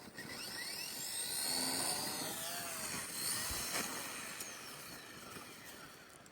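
K110S micro RC helicopter's electric motors whining, the pitch climbing and dipping as it spools up and flies, dying away near the end. A sharp tick a little over three and a half seconds in.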